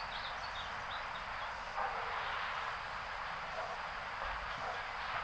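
Quiet outdoor ambience: a steady faint hiss with a few short high chirps, like a bird's, in the first second.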